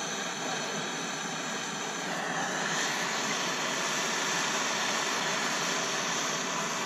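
Handheld gas torch burning with a steady rushing hiss, getting a little louder about two and a half seconds in, while heating seized bolts on a train horn to free them.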